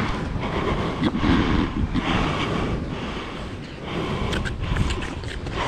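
Wind rumbling on a body-worn camera's microphone, with scattered rustling and handling noises.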